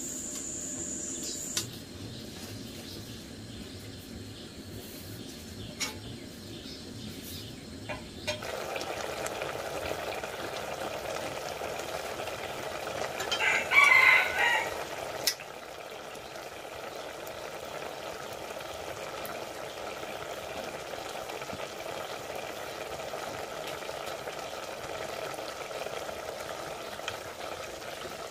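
Pot boiling over a wood fire with a steady hiss, and a rooster crowing once for about two seconds partway through.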